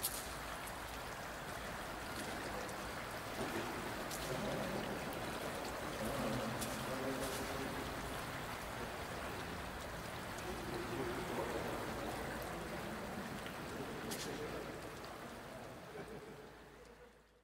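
Steady rush of running water in a large vaulted underground tunnel, with a few sharp clicks over it. It fades out near the end.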